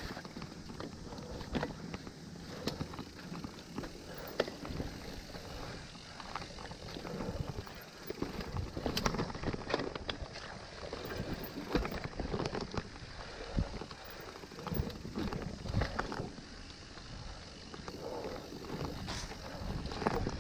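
Mountain bike ridden down a dirt trail, heard from the rider's own camera: steady rolling tyre noise with frequent irregular clatters and knocks as the bike goes over bumps.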